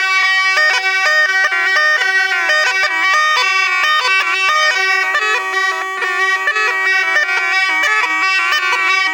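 Jogi murli (Rajasthani gourd pipe, the snake-charmer's pungi) playing a lively, ornamented melody over a steady held drone, without a break.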